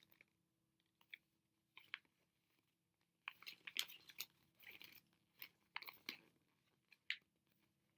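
Thin plastic blind-bag packaging of a Shopkins toy crinkling and crackling in irregular bursts as it is handled and opened by hand.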